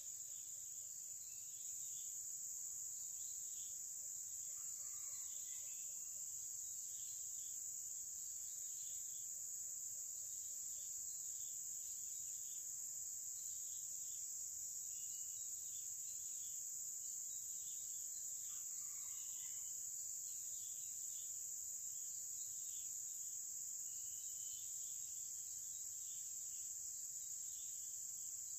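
Steady, high-pitched drone of an insect chorus, with faint short chirps repeating through it.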